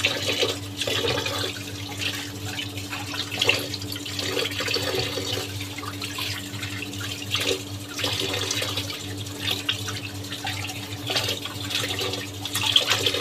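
Kitchen tap running into a plastic basin of water in a steel sink while small fish are rinsed and rubbed clean by hand, with irregular splashing.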